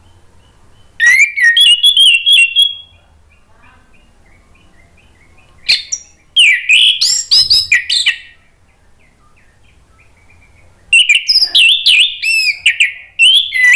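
Orange-headed thrush singing: three loud phrases of rapid, varied whistled notes, about four seconds apart, with faint short chirps repeating in the gaps between them.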